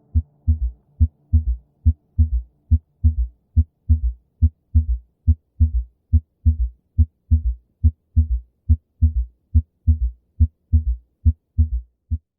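Heart auscultation recording of the first and second heart sounds with an added third heart sound: a steady, repeating train of low, dull thuds in a three-sound gallop rhythm. The third sound is a soft, low-pitched early-diastolic extra sound.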